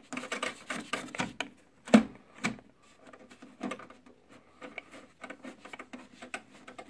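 JVC DiLA projector's lens-shift motor whirring with irregular clicks, the loudest about two seconds in, as its drive gear slips instead of moving the lens: it is trying but not working, a sign of stripped gear teeth in the lens adjuster.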